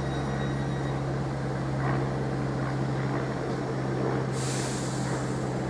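A Class 313 electric multiple unit standing at the platform, its onboard equipment giving a steady low hum. About four seconds in comes a short high hiss of released air, typical of the train's brake air system.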